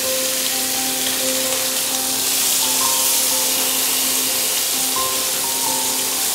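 Tandoori-marinated chicken legs sizzling in hot oil in a frying pan as they fry on the second side, a steady dense hiss. Soft background music with held notes and a simple stepping melody plays over it.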